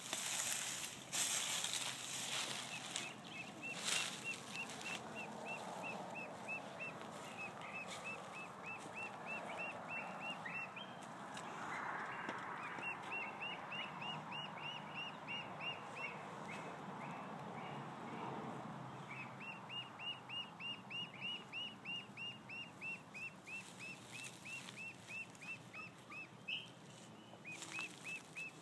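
A duckling peeping over and over, about four or five high peeps a second, in two long runs with a short break near the middle. These are the contact calls of a duckling cut off from its brood, calling so the others can find it. A few footsteps crunch on dry leaves at the start.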